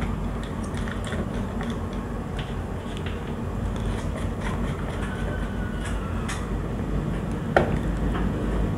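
Screwdriver working a terminal screw on an S-K12 magnetic contactor, small scattered clicks and scrapes of metal on metal, with one sharper click near the end. A steady low rumble runs underneath.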